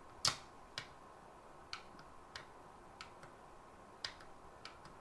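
About eight irregular, sharp plastic clicks, the loudest near the start, over a faint steady high tone.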